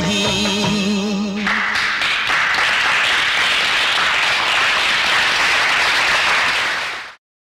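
A Bollywood film song ends on a held sung note about a second and a half in, and a large audience breaks into applause. The applause then cuts off suddenly near the end.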